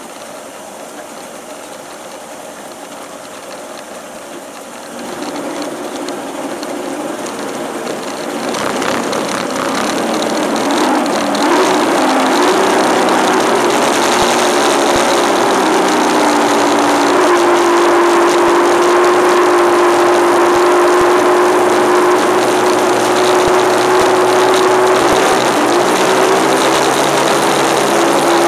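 Skater powerboat's engine accelerating: at first it runs low under the rush of water, then over several seconds it grows louder and rises in pitch, and from about halfway on it holds a steady high-speed drone with water and wind noise.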